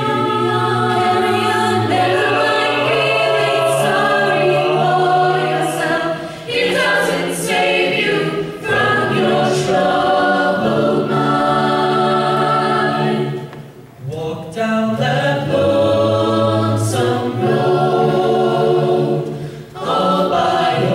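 Mixed-voice a cappella choir singing sustained chords in close harmony, phrase after phrase, with a short break about two-thirds through.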